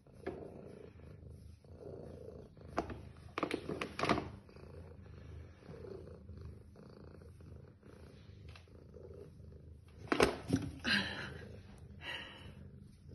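Domestic tabby cat purring steadily in contentment. A few sharp rustles and knocks break in three to four seconds in, and louder ones about ten seconds in.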